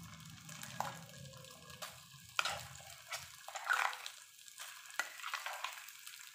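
Wet, coarsely ground tender coconut being spooned onto a ghee-greased tawa: soft plops of the paste and a few sharp clicks of the spoon against the pan.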